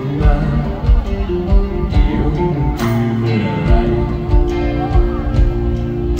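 Live band music led by acoustic guitar over a steady drum beat, in a passage without singing.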